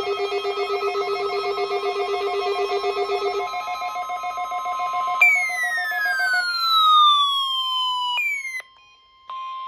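Electronic emergency alert tones. A pulsing, buzzing tone comes first, then a steady high beep with a falling electronic sweep over it for a few seconds. The sound cuts out near the end, and the steady tone comes back briefly.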